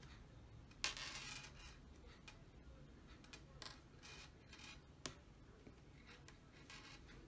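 Faint handling noises of nylon fishing line and a hook being worked by hand while a knot is tied. A sharp click comes about a second in, followed by a short rasp, then scattered small rustles and a second click about five seconds in.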